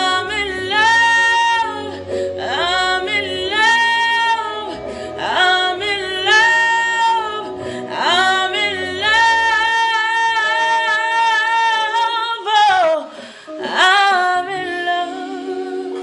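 A woman singing in full voice over a recorded instrumental backing track. Her phrases swoop up into long held notes, one after another.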